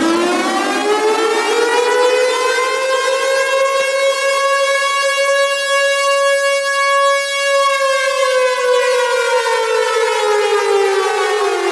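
Civil defense (tornado warning) siren sounding one long wail. Its pitch climbs over the first few seconds, holds high around the middle, then slowly slides back down near the end.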